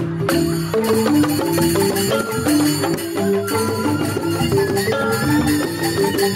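Joged bumbung gamelan: bamboo xylophones struck with mallets in fast, even runs of short interlocking notes, over a drum.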